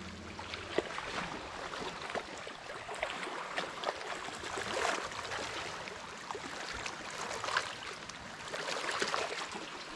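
Small waves on a choppy lake lapping against a dock and the stony shore: a steady wash of water broken by many small splashes.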